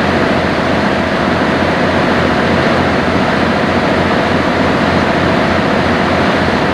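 Sightseeing boat underway: a steady low engine drone under an even rushing noise of water and air past the deck.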